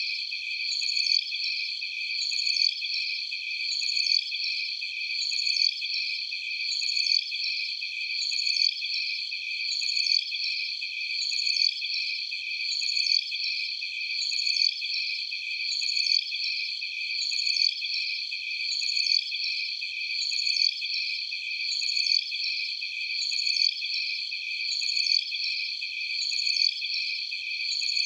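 Dense, high-pitched chorus of cricket-like night insects trilling in several layered pitches, with nothing low underneath, swelling and easing in a regular pulse about every second and a half: an 'alien jungle night' sound-effect ambience.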